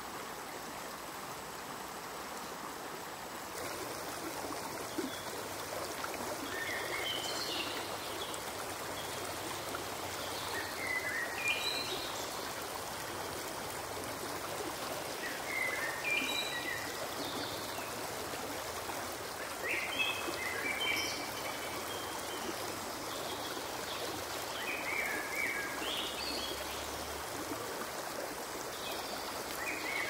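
Steady rush of flowing water, with short high calls from a small animal repeating every four to five seconds.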